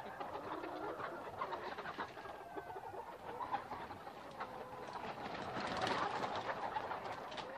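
A flock of chickens clucking and calling, many birds overlapping, with short sharp clicks scattered among the calls. It swells a little louder about three-quarters of the way through.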